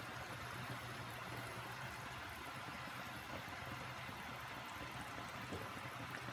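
Steady bubbling of a pot of salmon-head sinigang broth at a simmer, with a wooden spoon stirring through the broth and vegetables, over a constant low hum.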